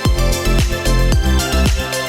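Electronic background music with a steady kick-drum beat and deep bass.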